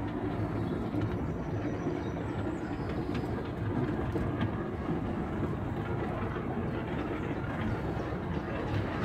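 Engine of an amusement-park vintage car ride running steadily as the car rolls slowly along its guide-rail track, a bit loud.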